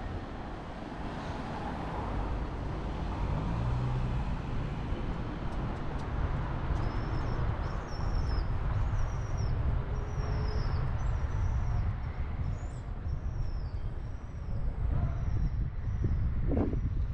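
City street traffic noise: a steady rumble of passing cars. Short high chirps repeat through the middle, typical of small birds.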